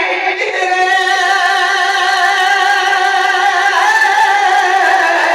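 A man's voice holding one long drawn-out sung note with a slight waver, between lines of a Punjabi naat.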